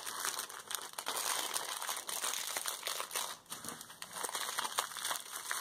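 Clear plastic packet crinkling and crackling as a bundle of glitter ribbons is pushed back into it by hand.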